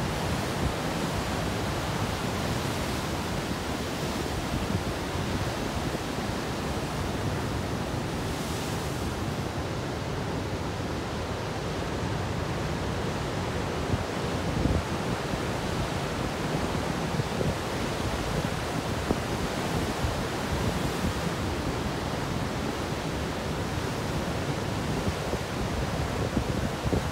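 Pacific Ocean surf breaking and washing in a steady roar, with wind buffeting the microphone.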